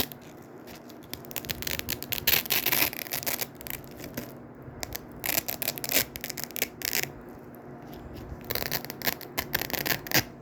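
Hook-and-loop fastener being peeled apart close to the microphone: three spells of crackly ripping with short pauses between them.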